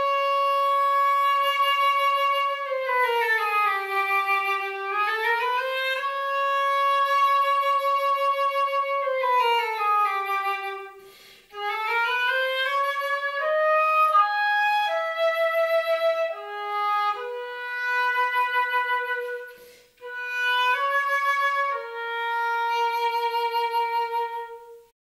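Solo flute playing a slow melody of long held notes joined by smooth slides in pitch, with two short breaks where the sound dies away. It is heard through the simulated reverberation of a theatre, rendered as a room-acoustics auralisation.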